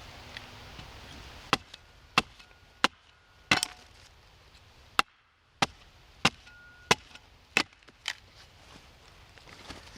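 Broad axe hewing a split log: about ten sharp wood chops, roughly one every two-thirds of a second, with a short pause midway. The wood is rotten.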